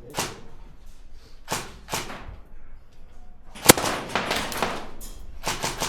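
Airsoft gunfire during an indoor firefight: irregular sharp cracks and knocks with short echoing tails, one much louder crack a little past halfway followed by a quick cluster of several more.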